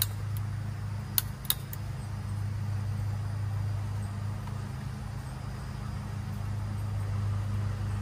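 A steady low machine hum, with a few sharp clicks in the first second and a half as PVC pipe and fittings are handled.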